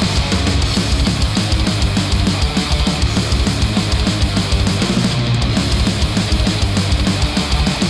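Heavy rock music with guitars and fast, steady drums, played back through HIFIMAN Sundara planar-magnetic headphones and picked up by microphones at the earcups.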